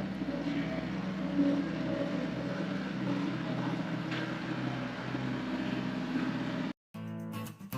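A vehicle engine running steadily at idle, a constant low hum. It cuts off abruptly near the end and acoustic guitar music begins.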